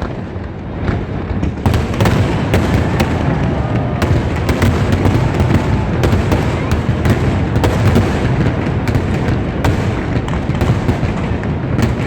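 Fireworks display: a dense, continuous barrage of bangs and crackles over a steady low rumble of booms, growing thicker about a second and a half in.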